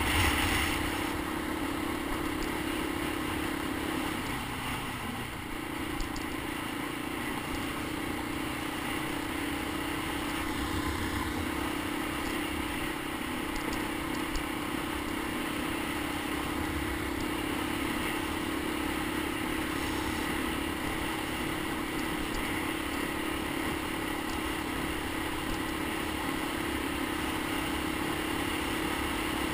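Honda ATC 250ES Big Red three-wheeler's single-cylinder engine running at a steady pitch while riding along. The engine note sags briefly about four seconds in as the throttle eases off, then comes back up.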